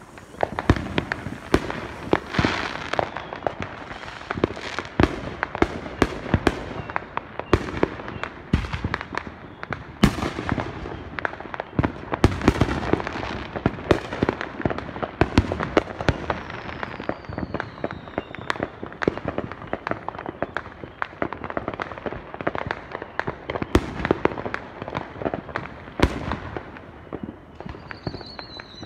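Many fireworks going off together in a dense, unbroken barrage of bangs and crackling reports. Twice, a whistle falls in pitch through it: once around seventeen seconds in, and again near the end.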